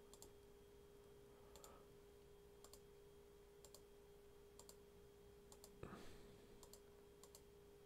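Faint computer mouse clicks, about one a second, each placing a point of a spline being traced, over a low steady hum. A soft thump comes about six seconds in.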